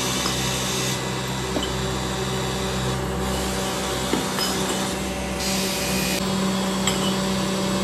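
Electric motor-driven workshop machinery running with a steady hum and whir, with a few light clinks as polished cast-aluminium hubs are set into a plastic crate.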